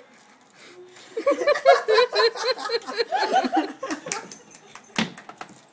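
A person laughing in a quick run of short bursts for about three seconds, then a single click about five seconds in.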